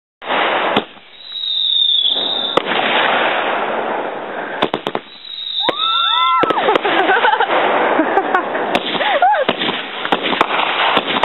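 Backyard consumer fireworks going off: a steady hissing spray of sparks with many sharp crackles and pops.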